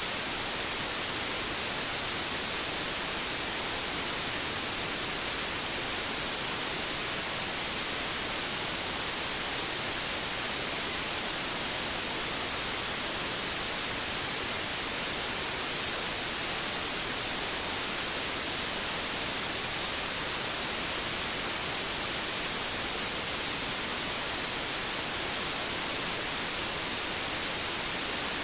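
Steady white noise: an even, unchanging hiss, brightest in the high end, with no rhythm or change.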